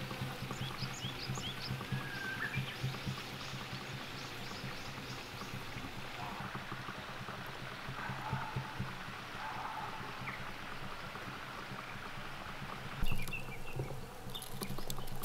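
Quiet outdoor ambience: a steady low hum with a few faint, short, high chirps in the first couple of seconds. About thirteen seconds in the sound changes suddenly and gets louder.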